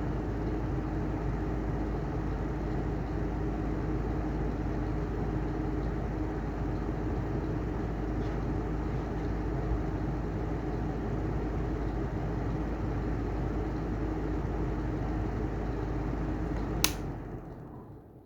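Heller style 2 exhaust fan running with a steady whir and hum, its bearings bad. Near the end a sharp click, after which the running sound dies away as the fan winds down.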